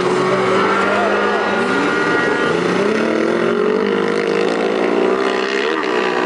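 Several autocross buggy engines racing together, revving up and down in pitch and overlapping as the buggies come through the bend.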